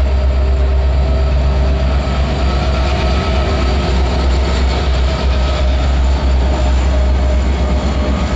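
EMD diesel-electric freight locomotives, an SD70MAC followed by an SD40-2, passing close by under power. Their two-stroke diesel engines make a loud, steady low rumble.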